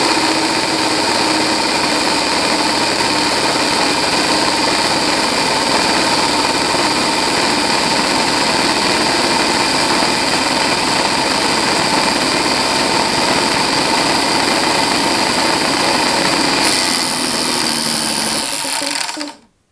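DeWalt air compressor's universal (brushed) motor running flat out with a loud, steady whine, sparking heavily at the brushes on its filed, epoxy-patched commutator. Near the end the sound changes, then it cuts off abruptly.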